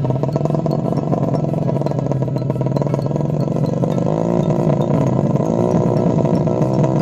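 Engine of a Honda Supra road-race motorcycle bored out to 150cc, running steadily with a strong steady note. From about four seconds in, its pitch pattern starts to waver. The owner says this engine is running rough, 'batuk pilek' (coughing).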